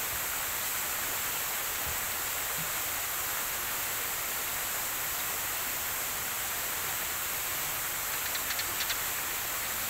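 Steady outdoor ambient hiss, an even rushing noise without any pitch. About eight seconds in comes a short run of faint, quick chirps.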